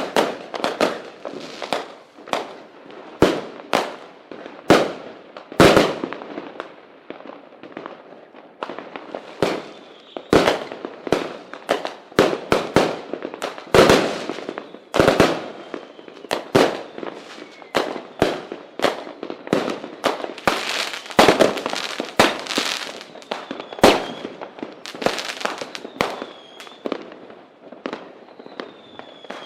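Fireworks and firecrackers going off: an irregular string of sharp bangs with crackling between them, several a second. A faint high whistle is heard near the end.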